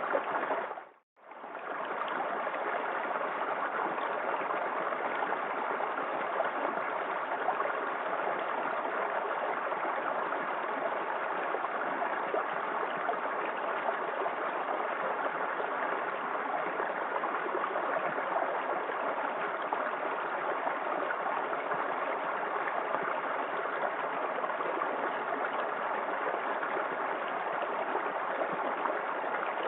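Small waterfall in a forest creek: water splashing and running in a steady rush. It fades out to near silence for a moment about a second in, then comes straight back.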